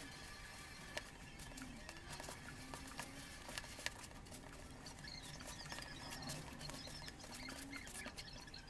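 Hands kneading crumbly mascarpone shortcrust dough in a plastic bowl: faint scratchy crumbling and rustling, with a few soft clicks.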